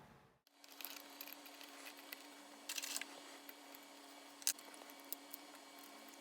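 Faint small clicks and taps of hand work on a watch at a watchmaker's bench, with a short scraping cluster about three seconds in and one sharper click later, over a steady low hum.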